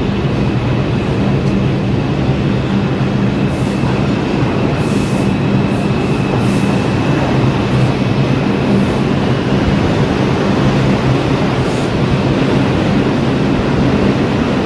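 R142 New York City Subway train on the 5 line pulling into an underground station along the platform: a steady, loud rumble of wheels on rail with a low motor hum, echoing off the station. A thin high wheel squeal comes in a few seconds in and fades out around the middle.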